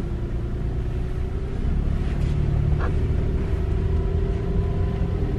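Car running: a low steady rumble with a faint hum, and a light click about three seconds in.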